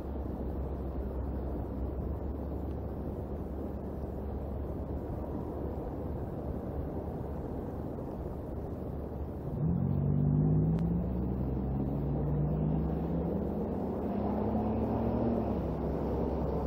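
Steady low outdoor rumble. About ten seconds in, a low engine drone joins it, its pitch rising and falling.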